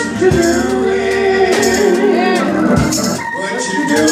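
Live gospel music: a male lead singer sings into a handheld microphone over the music, holding long notes.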